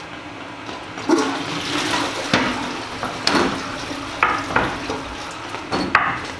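A toilet flushing, its rushing water starting about a second in, with a handful of sharp stamps of shoes on the tiled floor at uneven intervals over it.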